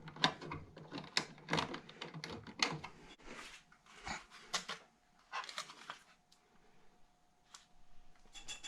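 Irregular clicks, scrapes and rustles of electrical wires and plastic smoke-detector parts being handled and pushed into a plastic electrical box. They come thick in the first few seconds, then thin out to scattered taps.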